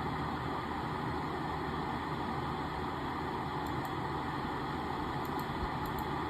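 Steady, unchanging background noise: a low hum and hiss with no distinct events.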